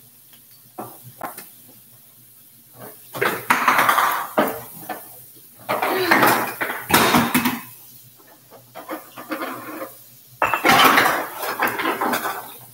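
Dishes and utensils clattering and knocking together, in a few loud spells: the first about three seconds in, lasting several seconds, and another near the end.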